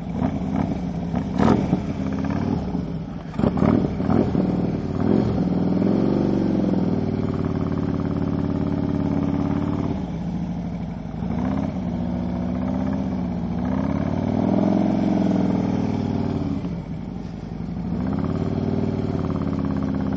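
Motorcycle engine running at low speed, its pitch rising and falling gently several times with the throttle through tight, slow turns and figure eights. A few sharp knocks sound in the first four seconds.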